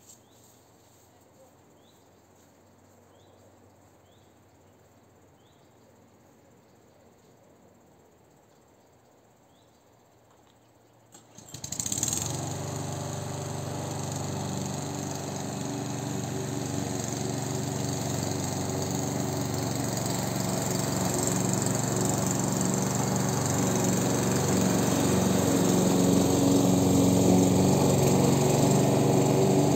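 A petrol lawn mower (Amber line-B class 4in1) starts up about 11 seconds in, after a stretch of faint background with a few small chirps. Its engine catches at once and runs steadily, growing gradually louder toward the end.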